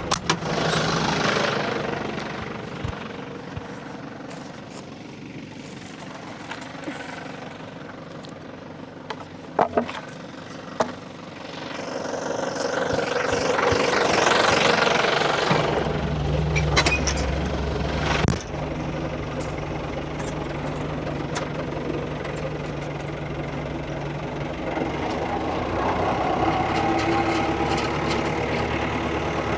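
New Holland tractor engine running steadily while parked, with a few sharp knocks about ten seconds in. In the middle, a louder rush of noise builds, and the engine note turns heavier and lower for a few seconds before settling back.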